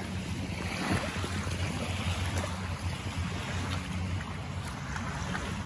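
Small waves lapping and splashing against a boat's hull in shallow water, with wind on the microphone and a low steady hum underneath.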